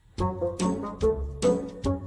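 Music with a steady beat of about two to three beats a second, starting just after a brief gap of near silence at the very start.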